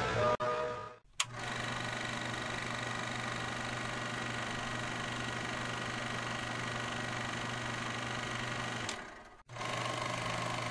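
A small motor running with a steady hum. It starts with a click about a second in, cuts out briefly just before the nine-second mark and starts again.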